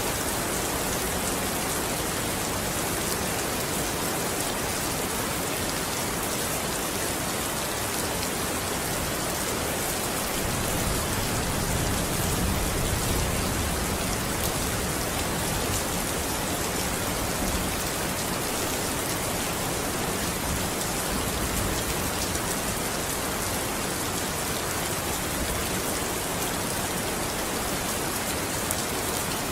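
Steady rain falling, an even hiss of many drops with no breaks. A slightly heavier low rumble swells in for a few seconds about eleven seconds in.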